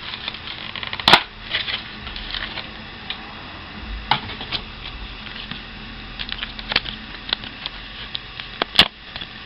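Crinkling and rustling of a Pokémon booster pack's foil wrapper and the cards inside being handled, with two sharp clicks, one about a second in and one near the end.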